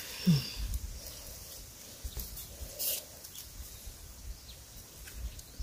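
Thin young bamboo shoots being gripped and snapped off by hand: soft rustling with a few sharp snaps in the middle, over a low rumble on the microphone.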